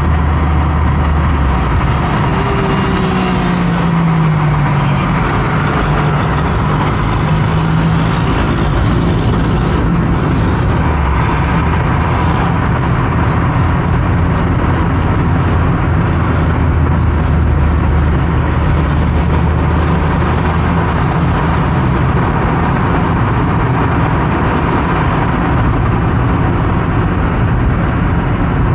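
Steady road and engine noise of a car driving on a busy highway, with a low engine note that falls in pitch about two to five seconds in.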